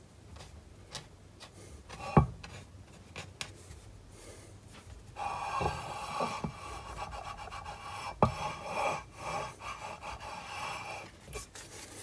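Cast-iron lathe saddle knocked down onto a surface plate, then rubbed back and forth across it for several seconds with another knock partway through. This is the part's machined face being spotted against the surface plate to check that it sits without rock and to show the high spots before scraping.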